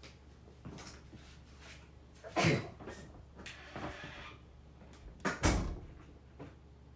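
Knocks and thuds of a room door being opened and shut, two loud ones about two and a half and five and a half seconds in, with lighter clicks between.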